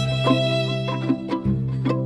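Instrumental music: a run of short melodic notes over long held bass notes.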